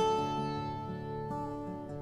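Background music on a plucked string instrument: a note struck at the start and held over a steady drone.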